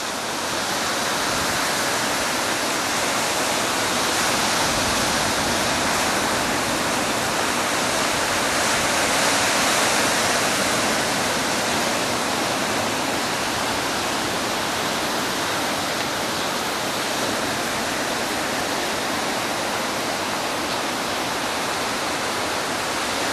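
Rough sea surf on a stormy day, waves washing up a sandy beach and breaking around rocks: a steady rushing noise that swells a little in the first half.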